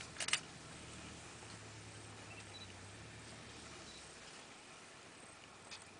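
Quiet outdoor ambience with a sharp double camera click about a third of a second in, and a faint steady low hum that stops about four seconds in.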